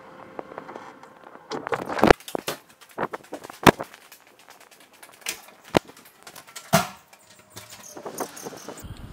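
Irregular knocks and clicks from footsteps and from handling an action camera while walking along a corridor, with a cluster of small metallic clicks near the end as a door handle is worked.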